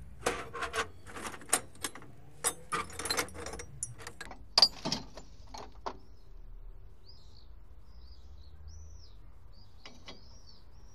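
Rusty scrap steel pieces (rebar and square tubing) clanking and scraping against each other as they are shifted by hand, a quick run of sharp knocks over the first six seconds. After that, birds chirping faintly, a few short arched calls.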